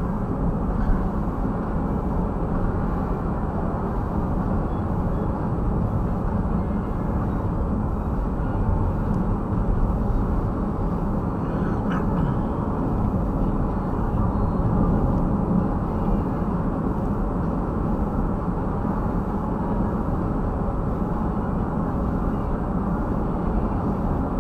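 Steady road and engine noise inside the cabin of a smart fortwo on the move, a deep even rumble without a clear pitch. A brief knock about a second in.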